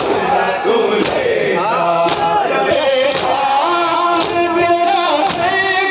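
Men chanting a noha together, with many hands striking chests in unison about once a second as matam.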